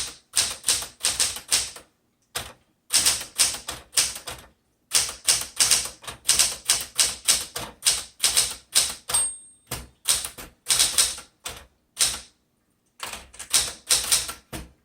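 Keys of a 1975 Smith Corona Classic 12 manual typewriter striking in quick runs, with short pauses between runs. A brief ringing tone sounds about nine seconds in.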